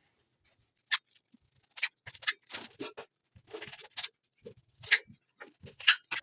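Knife cutting slices of bread into small cubes: a series of short, irregular scraping strokes and light taps.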